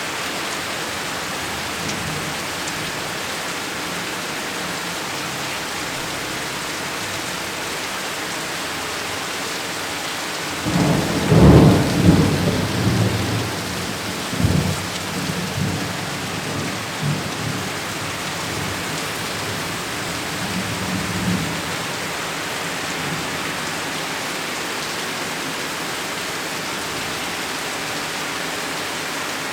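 Steady heavy rain hissing throughout, with a loud thunderclap about a third of the way in that rolls on as rumbling thunder for around ten seconds before fading back into the rain.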